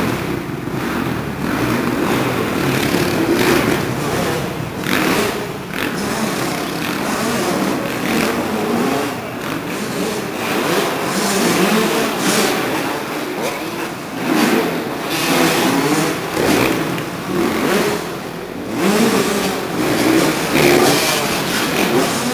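Motocross bikes riding the dirt track, engines revving up and dropping back again and again as the riders work the throttle over the jumps, with more than one bike running at once.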